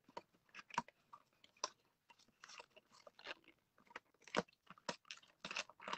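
Small cardboard HeroClix booster box being prised open by hand, its glued flap and card giving quiet, irregular crackles and snaps, a few louder than the rest.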